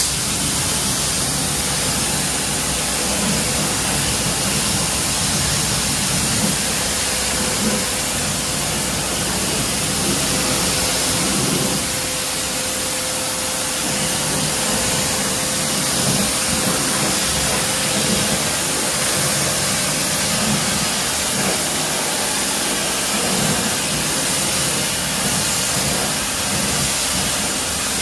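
Water spraying steadily from a rinse nozzle onto a car tire and wheel, washing off the suds of a multi-purpose cleaner. The hiss cuts in suddenly right at the start.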